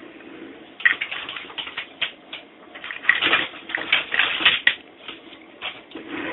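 A run of quick, irregular clicks and taps from small hard objects being handled, densest about three to four and a half seconds in.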